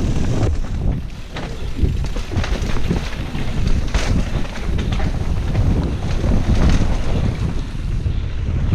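Wind buffeting the microphone of a camera riding down a mountain-bike trail, a loud low rumble with frequent knocks and rattles from the bike over rough ground.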